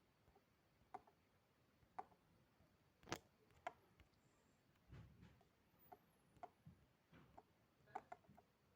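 Faint, irregular clicks and light taps of hard plastic Playmobil toy pieces being handled and knocked together, with the sharpest click about three seconds in.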